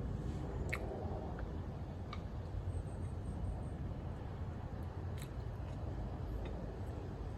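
Steady low background rumble with a few sharp, faint clicks scattered through it.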